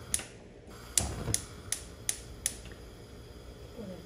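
Gas stove burner's spark igniter clicking in a steady run, about three clicks a second, as the burner is lit under the pan; the clicking stops about two and a half seconds in.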